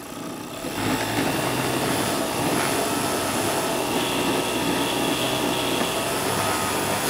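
Juki MO-3616 industrial overlock (serger) sewing machine running at speed as it sews through fabric: a steady, fast mechanical whir that picks up about a second in and then holds level.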